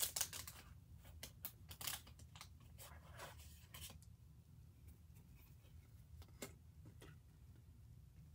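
Quiet handling noises of paper and small objects: a quick run of clicks and rustles for about four seconds, then a few scattered clicks, over a low steady hum.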